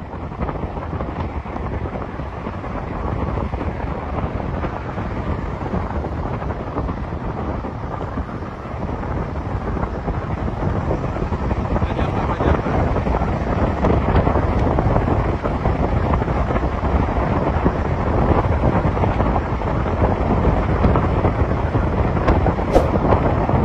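Bus engine and road noise, a dense, steady rumble that grows gradually louder through the second half, with wind rushing over the microphone.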